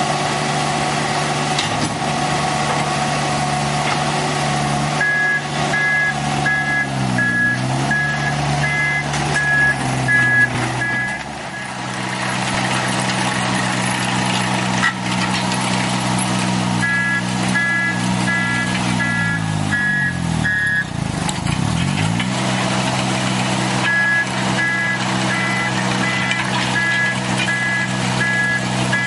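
Ditch Witch XT855 tracked backhoe's engine running, its pitch dipping and recovering twice. A reversing alarm beeps repeatedly in three spells over it.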